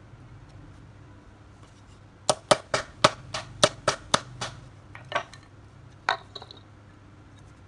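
Hammer tapping the back of a knife blade pressed onto a wooden strip: a quick run of about nine sharp metallic taps, roughly four a second, then two more single taps about a second apart.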